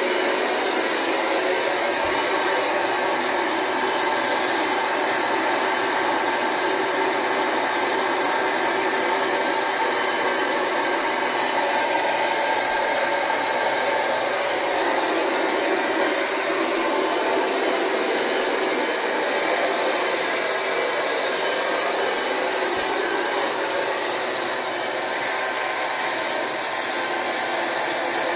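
Rug Doctor carpet extractor's vacuum motor running steadily with a high whine, its upholstery hand tool drawing the pre-spray cleaning solution and loosened dirt back out of the mattress fabric.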